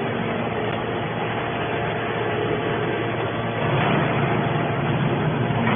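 Hydraulic scrap metal baler running steadily, a dense mechanical noise with a few steady hum tones, growing louder briefly about four seconds in.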